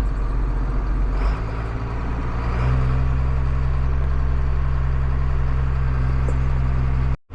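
John Deere farm tractor's engine running steadily while pulling a loaded grain cart. The engine note steps up about a second in and again a little later, getting louder, then cuts off abruptly just before the end.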